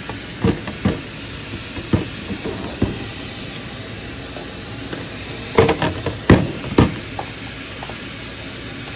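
Tap water running steadily into a kitchen sink, with several clunks and knocks of plastic containers being handled; the loudest knocks come in a cluster about six seconds in.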